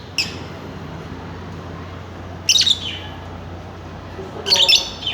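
Lovebirds calling in short, high-pitched chirps: one brief call just after the start, a burst about two and a half seconds in, and a longer burst near the end.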